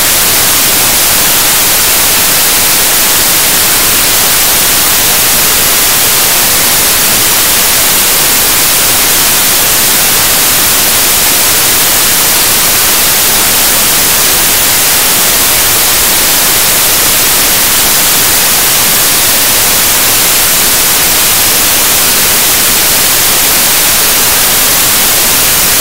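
Loud, steady static hiss like white noise, harsh and brightest in the high end, with no change through its length.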